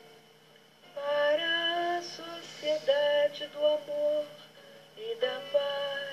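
A woman singing held, gliding notes in a song, starting about a second in.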